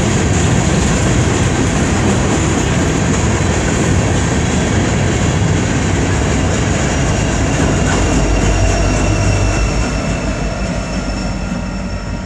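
Empty Union Pacific coal hopper cars rolling past on steel wheels: a loud, steady rail rumble with wheel clatter and a thin high ringing. About eight seconds in a deeper diesel drone joins as the rear locomotive goes by, then the sound eases as the train moves away.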